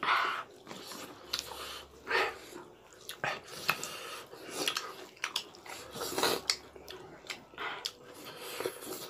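Close-up eating sounds of people chewing and biting food, in irregular short bursts and clicks.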